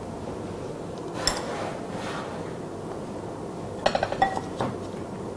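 Metal spoon tossing shredded green mango salad in a glass bowl, clinking against the glass: one clink a little over a second in, then a quick cluster of clinks about four seconds in.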